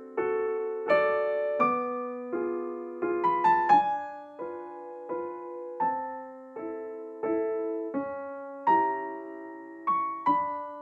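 Background music: a slow, gentle piano melody of single notes and chords, each struck and left to fade, with a couple of quicker runs of notes.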